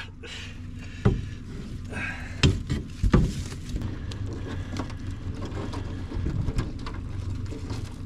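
Hands working a mud crab out of a mesh crab pot: netting rustles and the pot frame knocks several times, sharpest about one, two and a half and three seconds in, over a low steady hum.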